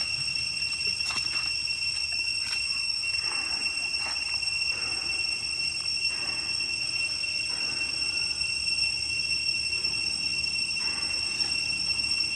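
Insects in the forest droning a steady, unbroken high-pitched tone, with a few faint clicks and soft rustles.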